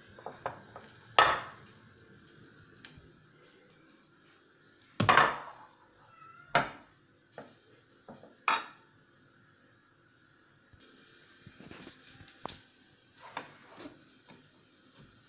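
Glass dish of pancakes clunking and clinking as it is handled and set down on a granite worktop, four loud knocks with smaller clatters between, the loudest about five seconds in. Near the end, softer crinkling and ticking of cling film being stretched over the dish.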